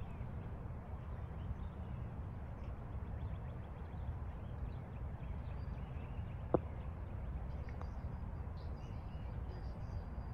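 Wind blowing across the microphone, a steady low rumble, with a single sharp click about six and a half seconds in as a putter strikes a golf ball.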